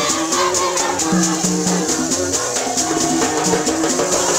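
Haitian rara band playing in procession: hand drums and rattles shaken in a steady pulse of about four to five strokes a second, over held low notes from tube trumpets (vaksen) that change pitch every half second or so.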